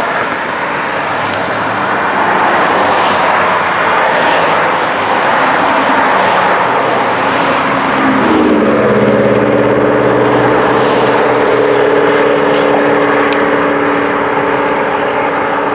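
Loud, steady rushing noise with an engine drone that comes in about eight seconds in, a hum of several steady tones held to the end.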